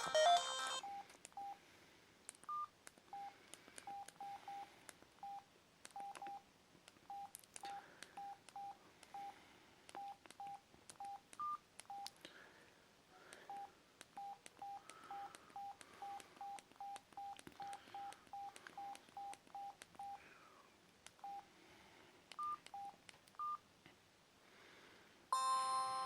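Mobile phone keypad tones: dozens of short, fairly quiet beeps at one pitch in an irregular run as keys are pressed, with a few higher-pitched beeps among them and faint key clicks.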